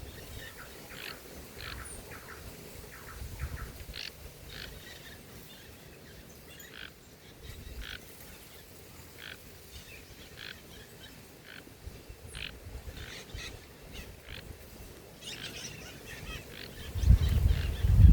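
Birds chirping: many short, sharp notes at irregular intervals. Near the end a loud low rumble comes in and is the loudest sound.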